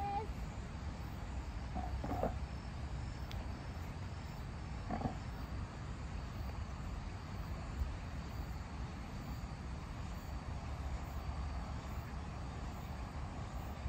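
Steady, even outdoor noise of a wide riverside, with a low rumble underneath. Two short, faint calls come about two and five seconds in.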